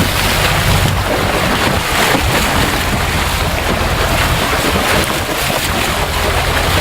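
Sport-fishing boat under way: the engine hums steadily under loud wind buffeting the microphone and sea water rushing past.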